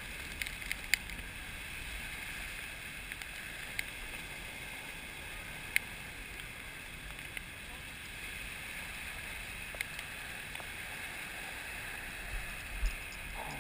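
Steady rush of water running down a water slide under a sliding rider, with a few sharp clicks now and then.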